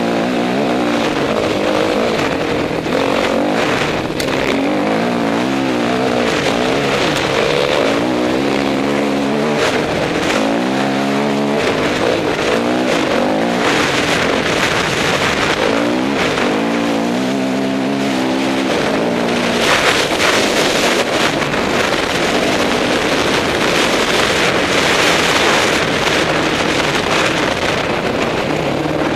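Dirt bike engine heard from the rider's seat, revving up and down over and over as the rider works the throttle and gears. Under it runs a steady rush of wind noise.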